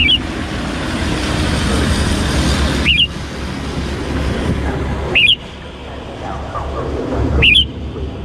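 Red-whiskered bulbul giving a short, sharp call four times, about every two seconds, over a steady background of traffic-like road noise.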